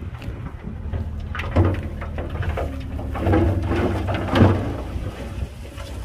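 Soil and rocks pouring and sliding out of a tipped dump truck bed, with louder crunching rushes about a second and a half in and again near four and a half seconds, over the steady low running of a heavy diesel engine.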